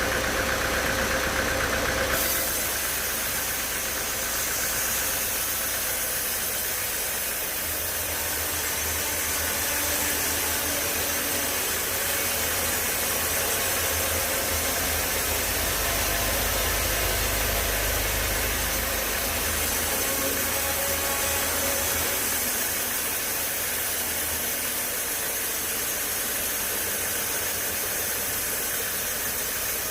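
Sawmill machinery running with a steady, engine-like drone. A high hiss cuts off suddenly about two seconds in, and a deeper hum swells from about eight to twenty-two seconds in.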